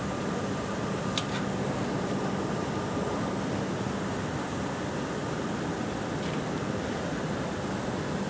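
Steady machinery hum and noise, with a single sharp click about a second in.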